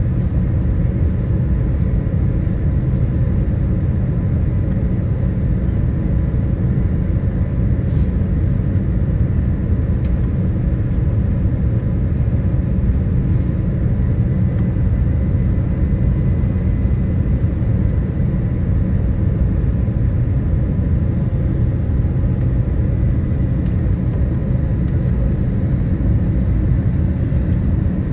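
Boeing 787-9 passenger cabin noise on final approach: a steady low rumble of the engines and airflow, with a faint steady high whine running through it.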